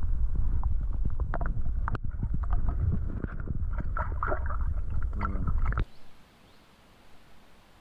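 Loud low rumble of wind buffeting the microphone, with scattered knocks and clicks of handling aboard a small inflatable boat. It cuts off abruptly about six seconds in, leaving only a faint hiss.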